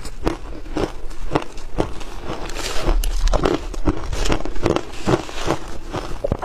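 Close-up crunching of a mouthful of shaved ice being chewed, about two crisp crunches a second. A metal spoon scrapes and digs through the ice in the bowl in the second half.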